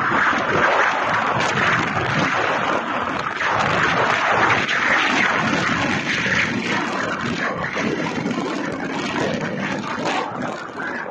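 Steady rushing noise of a motorcycle under way: wind buffeting the microphone together with engine and road noise.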